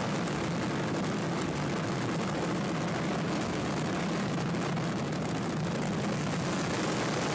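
A steady rushing background noise with no separate events and no clear pitch.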